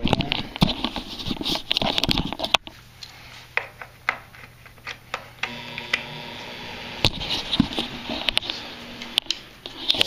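Handling noise as duct-blaster pressure tubing and fittings are plugged in: rubbing, rustling and several sharp clicks and knocks. From about halfway a faint steady hum with a low drone runs underneath.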